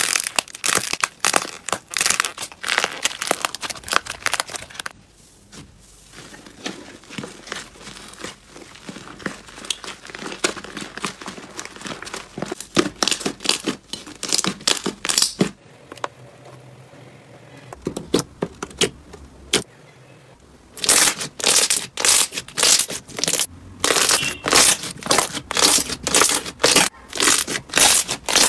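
Slime being pressed and squeezed by hand, crackling and crunching. The sound turns softer and quieter in the middle, then gives a run of loud crunches at about two a second near the end.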